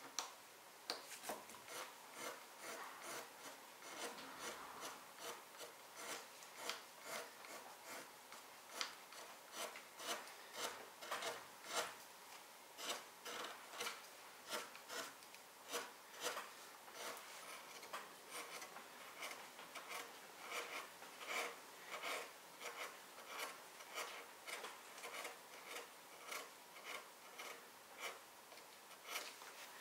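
A hand carving tool scraping and cutting wood in short, repeated strokes, about one or two a second and uneven in pace.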